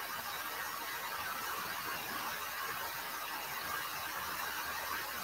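Steady background hiss with no other events: room tone.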